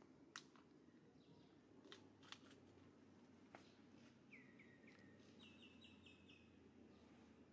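Quiet outdoor ambience with a few faint clicks, and a bird chirping two quick runs of short falling notes around the middle: first three lower notes, then about five higher ones.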